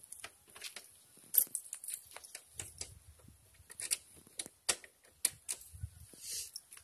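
Irregular clicks, taps and light clatter of a motorcycle's plastic covers and parts being handled and fitted back by hand, with the engine off.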